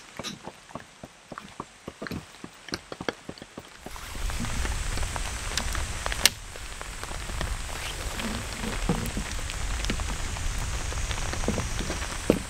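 Rain falling on a wet wooden deck and tent fabric, first as scattered drops ticking over a light hiss. About four seconds in it turns to a denser, louder rain hiss with a low rumble of wind buffeting the microphone, and a single sharp click comes about two seconds later.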